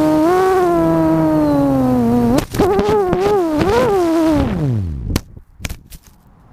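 Brushless motors of a quadcopter (Cobra 2213 2000kv motors with APC 7x4 props) whining at a steady pitch that slowly sags, with a sharp knock about two and a half seconds in. The pitch wavers, then winds steadily down to a stop a little after five seconds, followed by a few sharp knocks.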